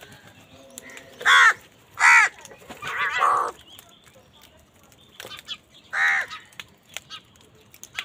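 House crows cawing harshly: three loud caws close together in the first few seconds, the third drawn out, and one more about six seconds in. Faint ticks and taps fall between the calls.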